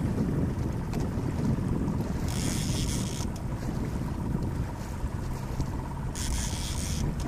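Small boat's outboard motor running low and steady under wind buffeting the microphone, with two short bursts of hiss about two and six seconds in.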